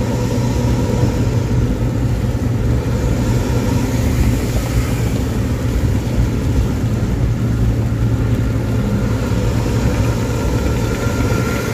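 Intercity bus engine and exhaust running steadily at highway cruising speed, a continuous low drone with the rasping 'ngorok' (snoring) exhaust note.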